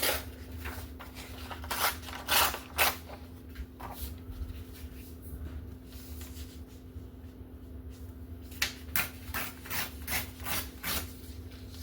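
Old book pages rustling and tearing as they are pulled out and handled, in a series of short, uneven strokes, busier at the start and again near the end.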